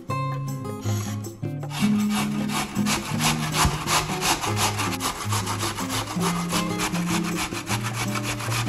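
Peeled raw potato grated on a stainless steel box grater: quick, regular rasping strokes that start about two seconds in, over soft background music.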